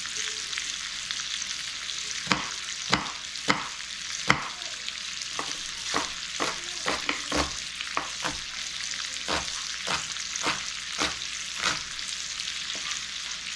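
Sliced kielbasa frying in bacon grease in a cast iron skillet, with a steady sizzle. Over it come sharp knocks of a knife chopping on a cutting board as an onion is diced, a few scattered and then about two a second.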